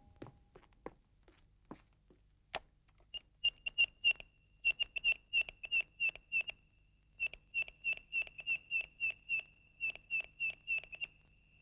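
Cartoon computer sound effect: a long run of short high electronic beeps, about three a second, as text is typed out on a display screen, with a short pause about halfway. A few soft clicks and one sharp click come before the beeping starts.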